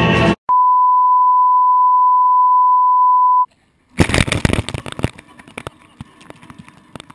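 Background music cuts off, then a single steady beep tone is held for about three seconds. After a brief silence comes a jumble of splashes and knocks as water sprays over the camera.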